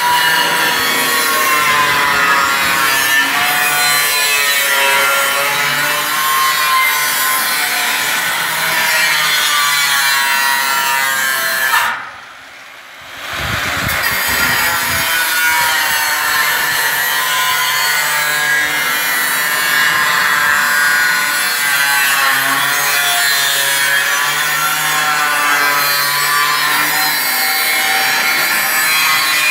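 Handheld angle grinder with a thin cutting disc slicing through a colour-coated steel tile roofing sheet, its whine rising and falling as the disc loads up in the cut. The grinding breaks off for a second or so about twelve seconds in, then starts again.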